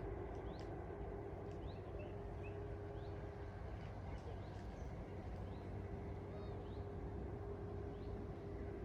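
Birds chirping in short, high, rising notes, about one a second, over a steady low rumble and a faint steady hum.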